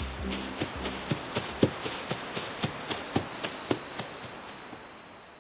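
Running footsteps on the ground, a quick steady rhythm of about four steps a second that gradually fades away near the end.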